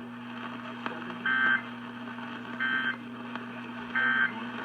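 Three short bursts of Emergency Alert System digital data tones, the End Of Message code, each about a third of a second long and a little over a second apart, heard through an AM radio broadcast with a steady hum beneath. They mark the end of the tornado warning alert.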